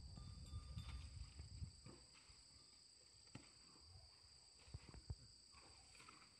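Faint rural field ambience: a steady high-pitched insect drone with a few soft low thuds, growing quieter toward the end.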